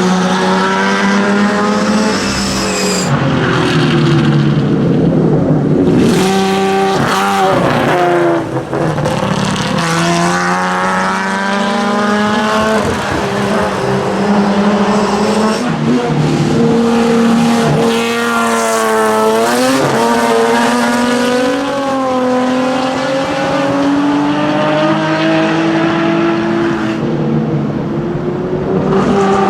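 Ford Capri RS 3100 racing car's V6 engine at full racing speed. Its pitch climbs under acceleration and drops sharply at each gear change, and in places falls away and picks up again as the car brakes and accelerates.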